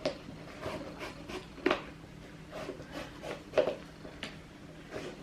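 Hands working the laces out of a trainer to reach the size tag inside: intermittent rubbing and scuffing, with several short sharp knocks.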